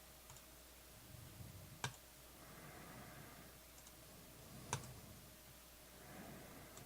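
Two sharp computer mouse clicks about three seconds apart, with a few fainter clicks, over quiet room tone while the randomizing lists are worked on screen.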